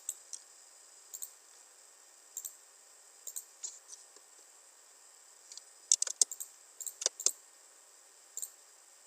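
Scattered clicks of a computer mouse and keyboard: single clicks spaced about a second apart at first, then a quicker, louder cluster around six to seven seconds in.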